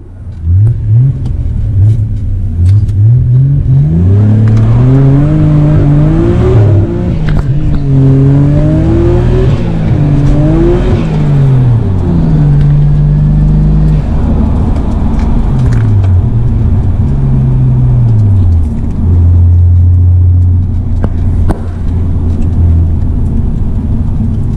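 Nissan Skyline GT-R R32's RB26 twin-turbo straight-six, heard from inside the cabin, accelerating hard through several gears: the revs climb again and again, with a quick drop at each upshift. About halfway through the revs fall away as the car slows, and for the last five seconds or so the engine runs steadily at a cruise.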